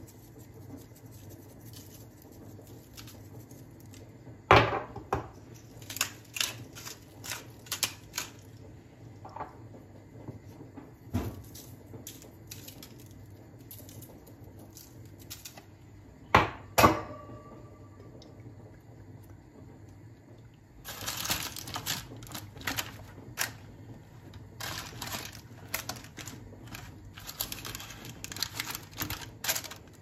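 Kitchen handling sounds while potato wedges in a parchment-lined steel roasting pan are seasoned with spices and olive oil: scattered sharp knocks and clicks, one pair with a brief metallic ring about halfway, then a longer stretch of crinkling and rustling in the last third.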